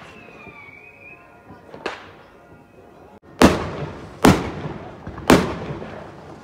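Fireworks exploding: a faint bang about two seconds in, then three loud booms about a second apart, each trailing off in an echo.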